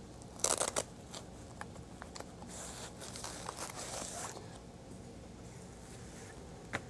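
Faint handling noise from a nylon body-armor harness: fabric rustling and scraping as it is lifted and turned over, with a short ripping sound about half a second in, like hook-and-loop pulling apart.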